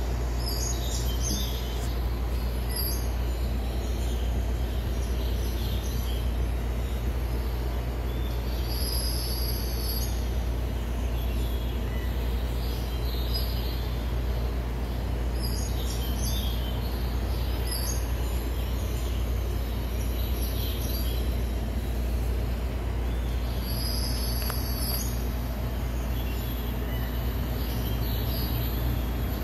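Black cat purring, a steady low rumble, while being stroked. Short high bird chirps come in every few seconds.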